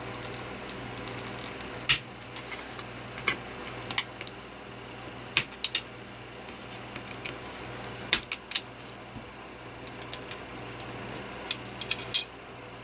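Sharp plastic clicks and taps from a cordless phone handset being taken apart by hand, coming irregularly in small clusters over a low steady hum.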